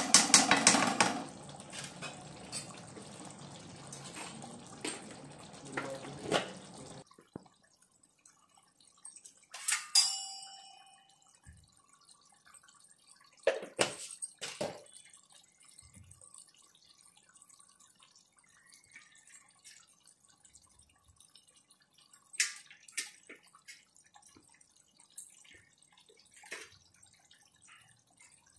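Mutton curry bubbling in a kadhai while a spatula stirs and scrapes the pan, cutting off suddenly about seven seconds in. After that it is mostly quiet, with a few scattered knocks and clinks of utensils, one of which rings briefly.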